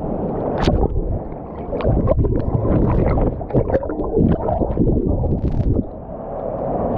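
Churning water in a waterfall's plunge pool, heard close up: a deep, dull, continuous rumble of turbulent water with many short sharp splashes from swimming in the strong current.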